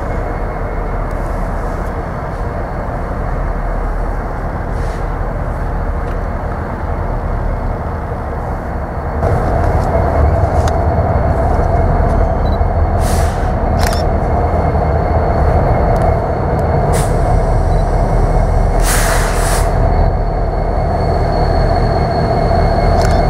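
Norfolk Southern SD70ACe diesel locomotives, with EMD two-stroke V16 engines, running as they pull an empty tank car train at low speed. The sound steps up louder about nine seconds in as the locomotives draw nearer, with a few short bursts of hiss.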